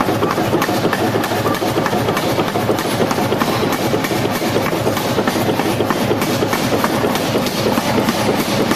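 Power forging hammer striking a red-hot steel block on the anvil in rapid, evenly spaced blows, over a dense, steady din.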